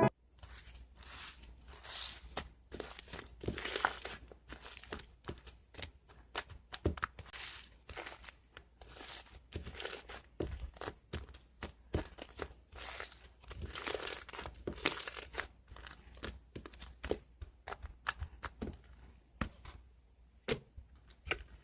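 Soft slime being squeezed and worked by hand, with dense, irregular pops and crackles of air bubbles bursting.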